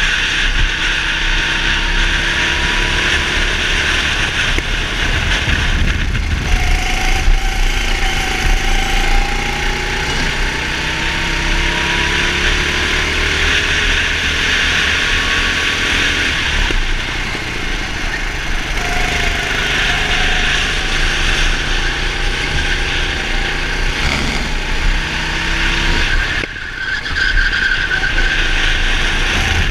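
Racing go-kart engine running hard on a lap, its pitch repeatedly climbing as it accelerates and dropping back as it slows, under a steady rush of wind noise on the onboard microphone.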